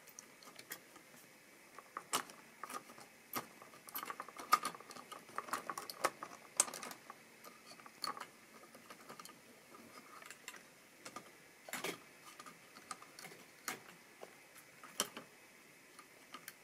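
Model railway locomotive wheels clicking and rattling irregularly over rail joints and pointwork as it runs slowly, busiest about four to seven seconds in, with sparser single clicks later.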